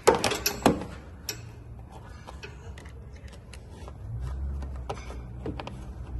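Two sharp knocks close together, then scattered light clicks and taps of hands and tools at work.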